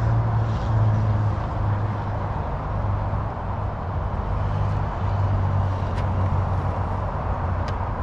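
A steady low mechanical hum, like an engine running nearby, over a constant outdoor noise bed, with a couple of faint clicks near the end.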